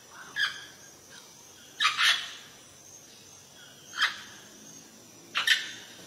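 A parrot giving four short, harsh calls about a second and a half apart.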